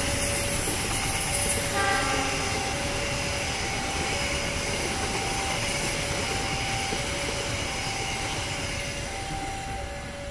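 Passenger coaches of a locomotive-hauled train rolling past on the rails, the wheel noise slowly fading as the last coach clears. Behind it, a two-tone electronic warning alternates steadily between a lower and a higher note, and a brief higher-pitched toot sounds about two seconds in.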